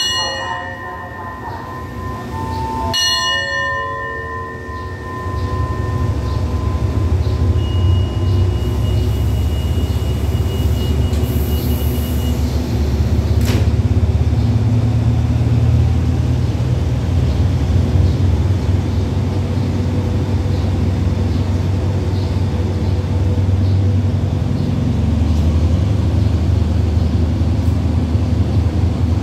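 A station's hand bell is struck about three seconds in and rings out, fading over a couple of seconds: the departure signal. From about six seconds a steady low rumble builds and holds as the express train, hauled by Hitachi diesel-electric locomotive 4519, pulls out past the platform.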